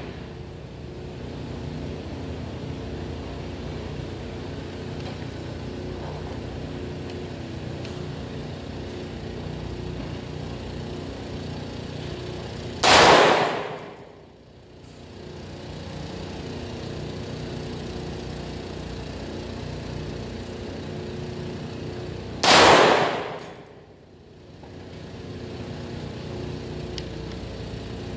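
Two single shots from a semi-automatic AR-15 rifle built as an M16A2 clone, about nine and a half seconds apart, each a sharp crack with a short fading tail, over a steady background hum.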